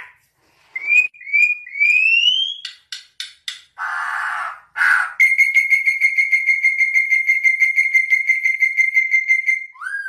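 Troupials whistling: a few short rising whistled glides, a quick run of clicks and a rough burst, then one long steady whistled note held for about four seconds that drops in pitch at the end.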